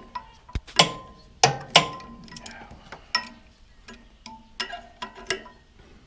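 Hand tools clinking and knocking on the steel pulley and bearing flange parts of a wood chipper being taken apart, irregular metal clicks, some ringing briefly.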